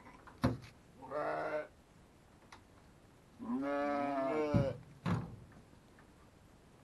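Sheep bleating twice, a short bleat about a second in and a longer one a few seconds later, with a few sharp knocks in between and just after.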